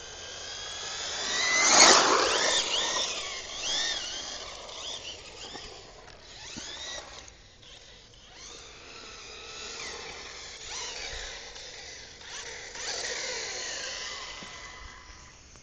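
Reely radio-controlled buggy's motor whining as the car speeds back and forth, the high pitch rising and falling as it passes; the loudest pass comes about two seconds in.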